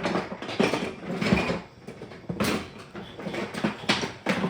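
Toy train track pieces and layout accessories being handled and set down by hand, giving irregular clattering and rustling knocks.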